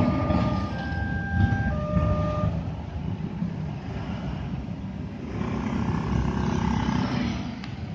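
Railway level-crossing warning alarm sounding two alternating tones of about a second each over a low rumble; it stops about two and a half seconds in as the train clears. Motorcycles and cars then run and pull away across the crossing.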